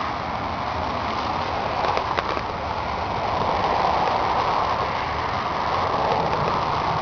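John Deere 750 compact tractor's three-cylinder diesel engine running steadily, with a few light clicks about two seconds in.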